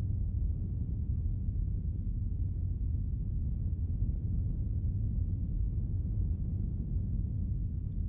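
Steady low rumbling drone from a documentary soundtrack's sound design, with no melody or beat.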